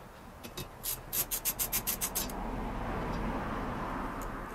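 Hand work at the pivot of a car's windscreen wiper arm, where the rubber cap comes off over the nut: a quick run of about eight sharp clicks, then a steady rubbing sound.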